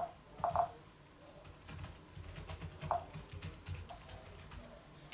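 Typing on a laptop keyboard: a run of quick, light key clicks, with a few short squeaks mixed in, the loudest about half a second in.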